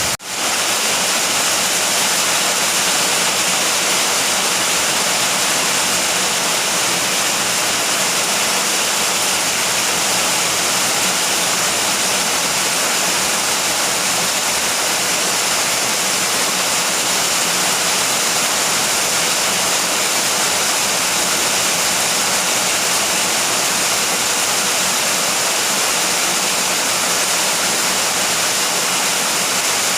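Steady rain falling, a dense, even hiss with no thunder, with a split-second dropout right at the start.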